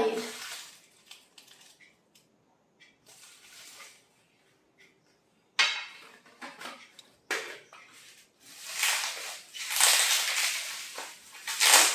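Plastic wrapping crinkling and rustling as a small package is unwrapped by hand, with a few sharp clicks and knocks of small items being handled. The crinkling starts after a few quiet seconds and is loudest near the end.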